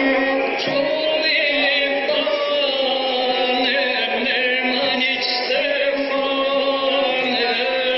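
A gusle, the single-string bowed folk fiddle, played continuously: quick ornamented figures over a steady low note, heard through a television speaker.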